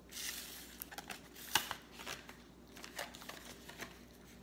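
Plastic food tray and its plastic bag being handled: a short crinkling rustle, then several sharp clicks and crackles, the loudest about one and a half seconds in.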